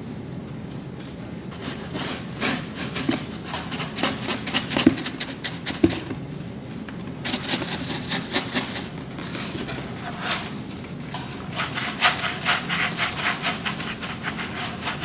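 A paintbrush scrubbing paint onto a craft pumpkin's textured surface in quick, repeated back-and-forth strokes, the bristles rubbing and scratching. The strokes come fastest and loudest in the second half.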